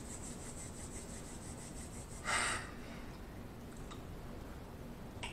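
Quiet room hiss, broken a little over two seconds in by one short, soft hiss with no pitch.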